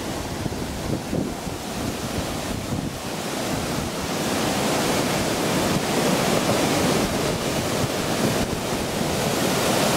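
Muddy flash-flood water rushing and churning down a desert creek bed, a steady rush of water that grows louder about four seconds in.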